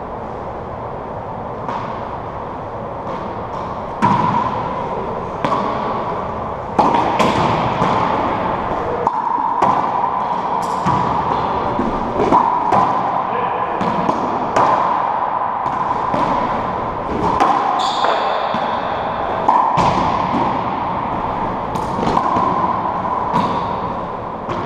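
Racquetball rally: the ball is struck by racquets and smacks off the court's walls and floor, a sharp crack about every second or so, each one echoing in the enclosed court. The hitting starts about four seconds in.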